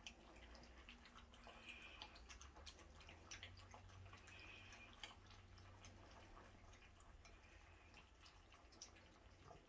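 Miniature schnauzer puppies lapping goat's milk from a shallow dish: faint, irregular wet clicks and drips.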